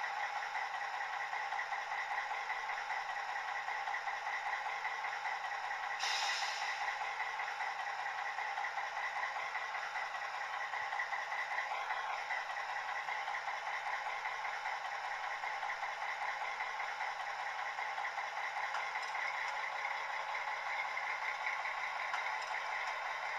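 Sound decoder in a Piko model of a PKP SU45 diesel locomotive playing a steady diesel-engine idling sound through its small speaker, with a short burst of hiss about six seconds in.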